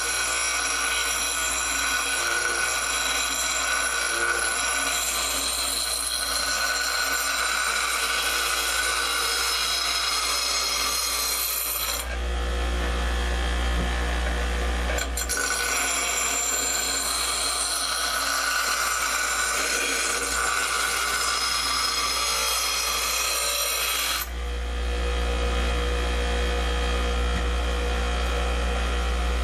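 Power grinder grinding the edges of a steel sawmill-blade knife blank, a steady hiss with a whine. About twelve seconds in, and again near the end, the grinding eases off and mainly the motor's hum is heard.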